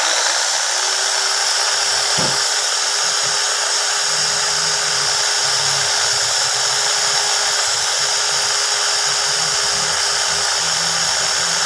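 Handheld power tool with a rotary brush running at a steady speed, a constant hum under a loud hiss, as it scrubs carbon deposits off the engine's piston.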